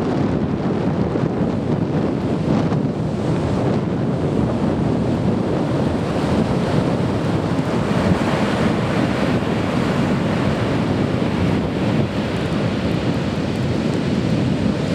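Heavy typhoon surf breaking and rumbling steadily, with wind buffeting the microphone.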